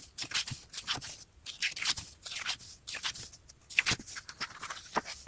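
Pages of a photobook being turned and handled: a run of short, crisp paper rustles and flicks.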